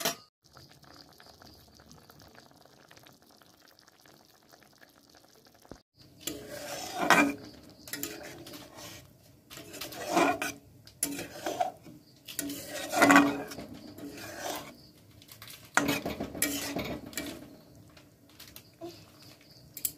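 A spatula stirring egg curry in a metal kadai, scraping and clattering against the pan in irregular strokes that start about six seconds in. Before that, only a faint steady hiss of the curry simmering.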